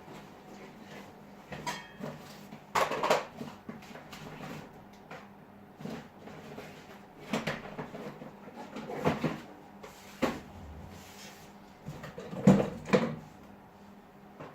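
Intermittent clacks and knocks of small hard objects, tools and phone parts, being handled and set down on a work surface, in a few separate clusters with quiet gaps between.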